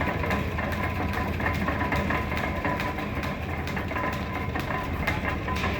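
Belt-driven lathe running: a steady low rumble with a faint whine and a regular ticking a few times a second.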